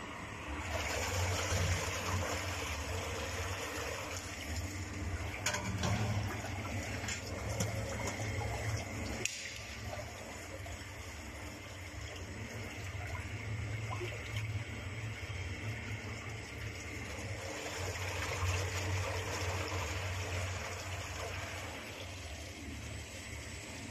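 A 250L vacuum emulsifying mixer's machinery running: a steady watery rushing over a low motor hum, swelling and easing several times, with a few sharp clicks about a third of the way in.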